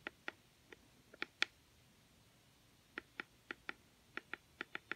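Faint clicks of the buttons on a SoundSpa Recharged clock radio being pressed to turn off its alarms: a few scattered clicks in the first second and a half, then a quicker run of about nine presses in the last two seconds.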